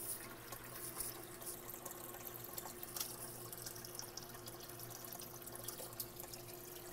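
Aquarium filter running: water trickling and splashing steadily into the tank over a constant low motor hum, with a few sharp drip-like ticks.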